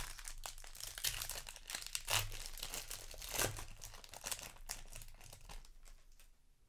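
Foil wrapper of a Magic: The Gathering booster pack being torn open and crinkled by hand, a run of crackling rustles. The crackling thins out and fades near the end as the cards come out.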